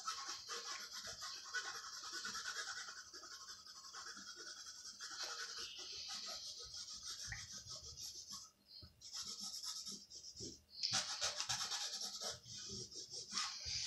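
Pencil lead scratching over moistened linen cloth in quick back-and-forth shading strokes, pausing briefly twice in the second half.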